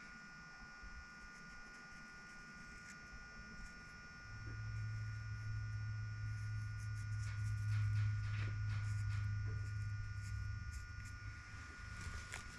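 Electric drill spinning a valve against its seat in a Chevy 327 cylinder head to wipe the marker off and show the valve's contact pattern: a low, steady motor hum that starts about four seconds in, with a few light clicks.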